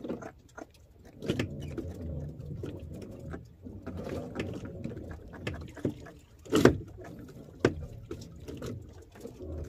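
Fishing handline being hauled in hand over hand, with scattered knocks and clicks of line and gear against the boat over a low steady hum. The loudest knock comes about six and a half seconds in.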